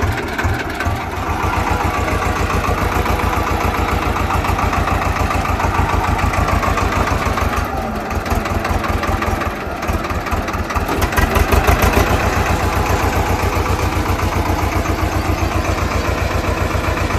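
Swaraj 724 XM tractor's two-cylinder diesel engine running steadily under load as the tractor works its way out of soft, dug-out soil. The engine note gets a little louder about two-thirds of the way through.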